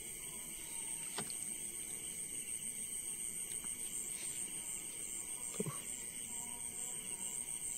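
Steady high-pitched chorus of night insects such as crickets, with a faint repeating pulse. Two brief knocks break through it, a faint one about a second in and a louder one a little past halfway.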